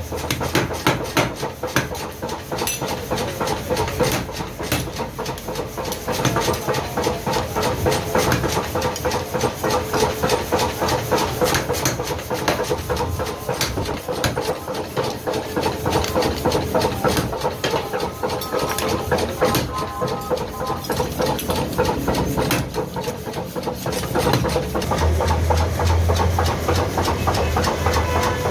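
Motor-driven mechanical power hammer pounding a red-hot steel brick-hammer head on its die in a fast, continuous run of blows, with the machine's drive running underneath. A low hum comes up near the end.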